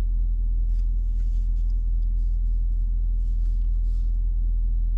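Dodge Durango's engine idling steadily, a low rumble heard from inside the cabin, with a few faint light taps over it.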